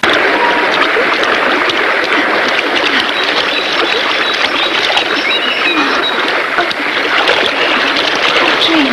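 Waterfall pouring into a rocky stream pool: a steady rushing of water that starts abruptly at a cut and holds evenly throughout.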